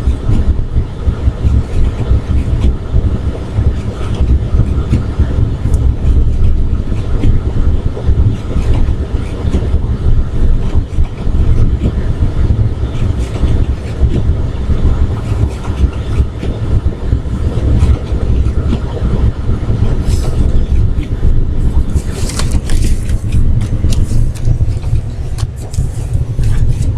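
Car cabin noise while driving on a snow-covered road: a loud, steady low rumble of tyres, engine and road with an uneven flutter, picked up by a laptop sitting on the dashboard. A few brief sharp noises come near the end.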